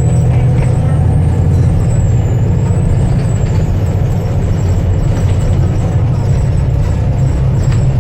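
Volvo B7TL bus's six-cylinder turbodiesel engine running under way with a deep steady drone, its turbocharger giving a thin high whistle that wavers up and down in pitch and fades out about halfway through.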